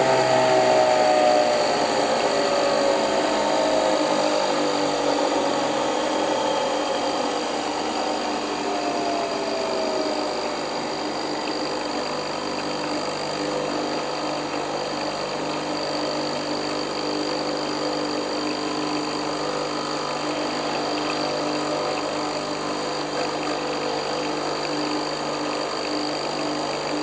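Nespresso Vertuo coffee machine and electric milk frother running together: a steady motor whine and hum, with pitches falling over the first ten seconds or so before settling.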